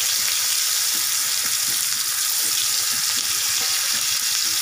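Pieces of hilsa fish frying in hot mustard oil in a kadai: a loud, steady sizzle, the fish having just gone into the oil.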